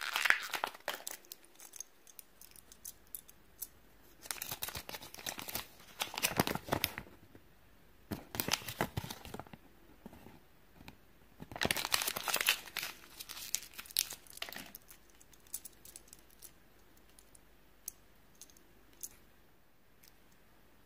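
Plastic wrapping of a Kinder Joy egg and its toy being torn and crinkled by hand, in four bursts of several seconds each, followed by a few scattered light clicks in the last few seconds.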